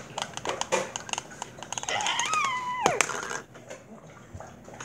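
Irregular light clicks and taps of handling close to the microphone, fingers working a fidget spinner at the lens. About two seconds in comes a short whine that climbs a little, then drops steeply and stops.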